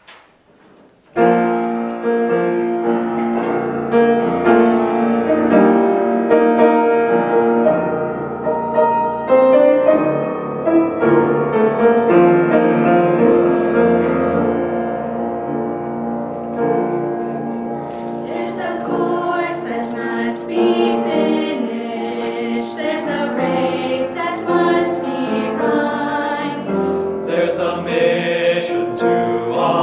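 A piano plays a hymn introduction starting about a second in. About halfway through, a mixed choir of young men's and women's voices comes in singing over it.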